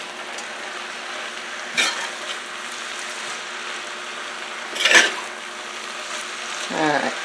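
Beet greens and Swiss chard sizzling in oil in a saucepan while a metal spoon stirs them. Two sharper clinks of the spoon against the pan come about two seconds in and again about five seconds in.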